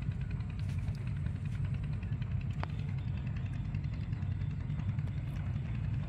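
Steady low drone of an engine running, with no change in pitch or level.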